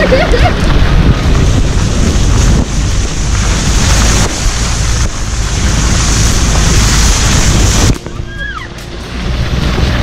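Wind buffeting the microphone of a camera mounted on the outside of a car, over the low rumble of the car driving along a rain-soaked, muddy dirt road. The noise drops off sharply just before eight seconds in for about a second, then comes back.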